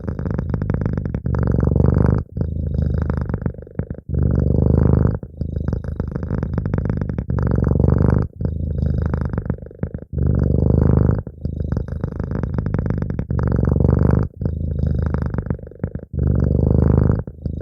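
Domestic cat purring close up, a steady rumbling purr that swells and eases with each breath, about one breath every two seconds.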